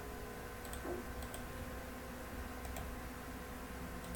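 Computer mouse clicking a few times, faint short clicks in close pairs, over a steady low room hum.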